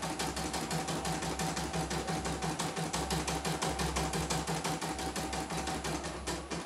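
CNY E900 portable embroidery machine stitching, its needle mechanism clattering in a fast, even rhythm, with a steady high whine underneath that stops near the end. A test run after the dead machine was repaired with replacement parts.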